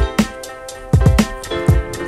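Background music with a drum beat and sustained instrumental tones.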